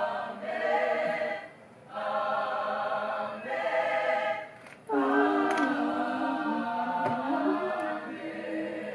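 Choir singing sustained notes in phrases of a few seconds, with short breaks between them. A lower part joins about five seconds in.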